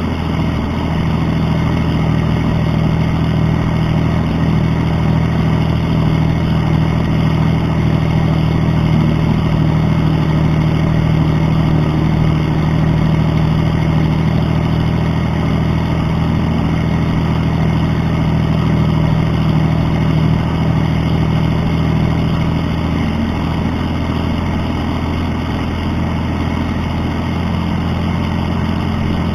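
Kirovets K-701 tractor's YaMZ-240 V12 diesel engine running steadily with a deep exhaust note, heard from right beside its upright exhaust stack. The level dips slightly and the note shifts a little near the end.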